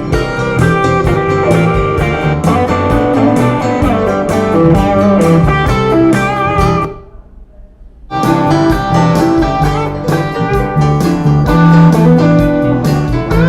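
Guitar-led music with a steady beat and strong bass, played through a home speaker as a sound test. The music drops out about seven seconds in and comes back a second later.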